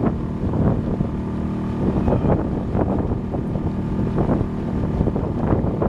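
Steady hum of a boat's motor running under way, with wind buffeting the microphone.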